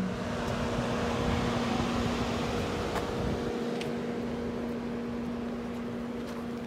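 A steady mechanical hum: a constant low drone with a hiss over it, easing off slightly toward the end.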